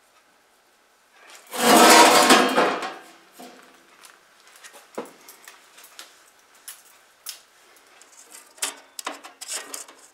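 Sheet metal scraping and rattling loudly for about a second and a half, then scattered light metal taps and clicks.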